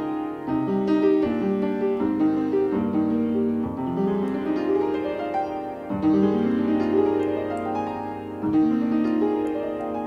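Background piano music with rising runs of notes.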